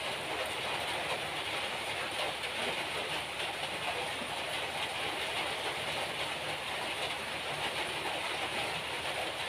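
Steady hiss of heavy monsoon rain.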